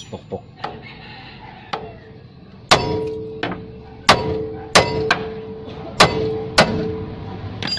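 Hammer blows on the steel steering knuckle of a Suzuki Multicab, knocking the tie rod end's tapered stud loose from its seat. A few light taps, then about eight hard metal strikes from about three seconds in, most leaving a brief ringing note.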